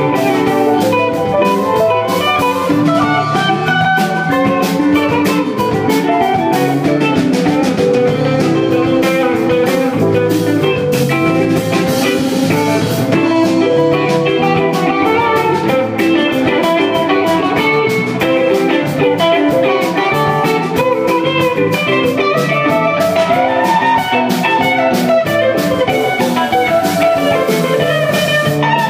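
Live rock band playing loudly: electric guitars, electric keyboard and drum kit in a steady, continuous jam.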